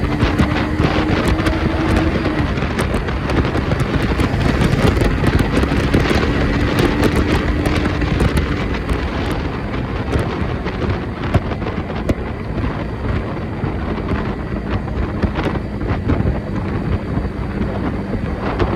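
Wind rushing over the microphone, with scattered crackles and a faint hum that rises slightly twice in the first half.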